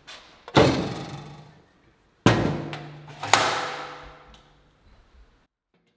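Sheet-metal access door of a wide belt sander being banged shut and latched: three loud metal clunks, each ringing away for a second or more.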